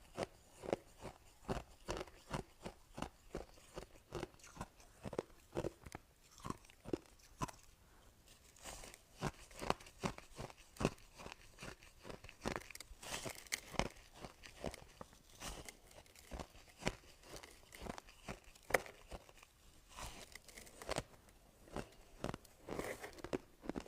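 Soft ice being bitten and crunched between the teeth, close up: a quick, irregular run of crisp cracks and crackles as the pieces are chewed.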